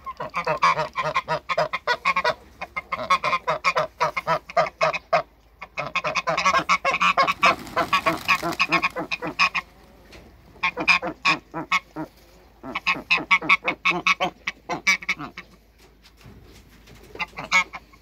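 Domestic geese honking: rapid runs of short, loud honks at several per second, broken by a few pauses of a second or so.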